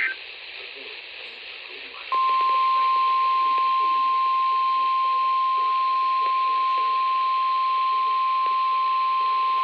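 NOAA Weather Radio's 1050 Hz warning alarm tone: one steady, unwavering beep at a single pitch, coming in about two seconds in after a short stretch of receiver hiss and holding at full level. It is the weekly test of the alarm signal that switches on specially built weather-alert receivers.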